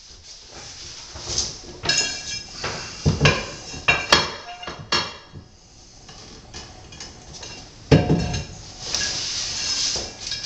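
Marble tiles clinking and knocking against each other and the work surface as they are handled: a run of separate sharp, ringing clicks, with a steadier scraping near the end.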